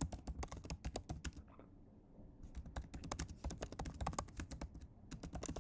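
Typing on a computer keyboard: a fast, uneven run of key clicks, with a brief pause about two seconds in.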